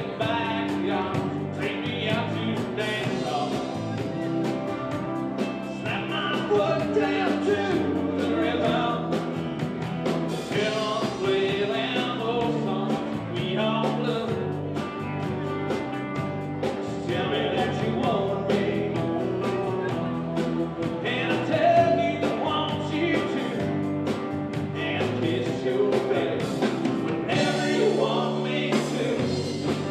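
Country band playing a song, with singing over electric bass, guitars and drums.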